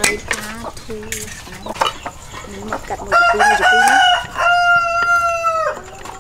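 A rooster crowing once, a long call of nearly three seconds starting about three seconds in, which is the loudest sound. Chickens cluck in short calls before it, with light clicks of knives slicing chili peppers throughout.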